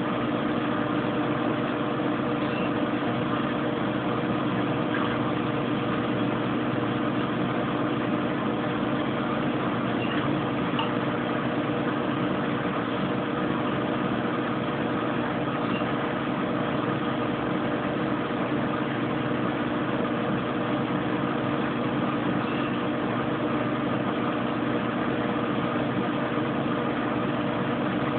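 Kenmore Oasis top-load washing machine in its high-speed spin, a steady even hum with several fixed tones that holds without change. It is spinning very nicely, running on through the spin where before the repair it stopped with an OL code.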